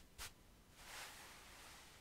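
Soft bristles of two wide paintbrushes brushing over bare skin on the neck and shoulders: one short stroke just after the start, then a faint, longer hiss of bristles that swells and fades around the middle.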